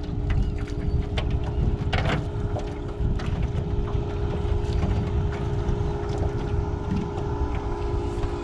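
Wind buffeting the microphone, with splashing and dripping as a cast net with fish in it is hauled up out of the water over the side of a jon boat. A steady low hum runs underneath, and a few short knocks come through.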